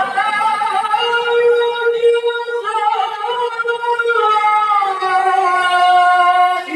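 A male qori reciting the Quran in the melodic, chanted style into a handheld microphone. It is one long, drawn-out phrase that begins abruptly on a held high note with slight wavering ornaments. About five seconds in, it steps down to a lower held note.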